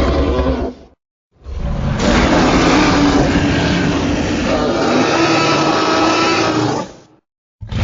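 Tyrannosaurus rex roar sound effects: a short call lasting under a second, then after a brief gap a long, rasping roar of about five and a half seconds held on a steady low pitch.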